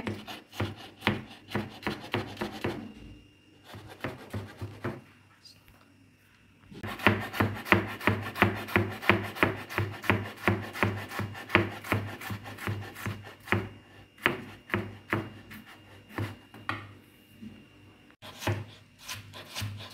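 Kitchen knife rapidly chopping raw potato on a wooden cutting board, about four or five blade strikes a second. The chopping stops for about three seconds a few seconds in, then resumes steadily.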